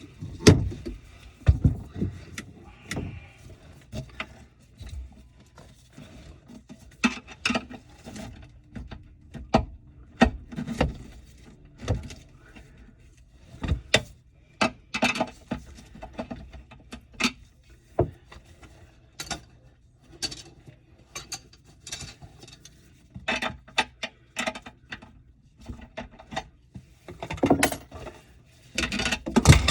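Irregular clicks, knocks and light clatter, a few a second, of hard objects being handled and set down.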